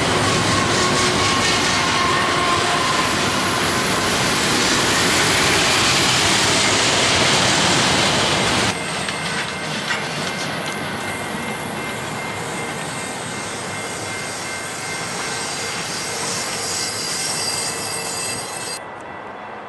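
Double-stack container freight train rolling past close by: steady rumble and clatter of steel wheels on the rails with thin wheel squeal over it. The sound drops abruptly about nine seconds in and again near the end.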